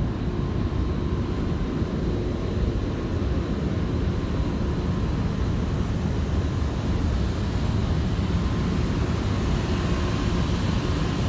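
Steady low rumble of a heavy truck's Weichai diesel engine idling.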